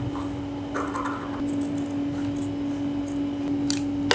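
Scissors cutting through a paper pattern: a series of separate snips and paper crunches, over a steady low hum.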